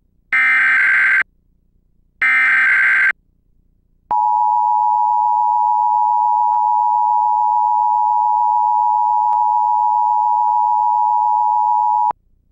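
Emergency Alert System test signal. It opens with two one-second bursts of the digital header data, then the steady two-tone attention signal (853 and 960 Hz) sounds for about eight seconds and cuts off abruptly.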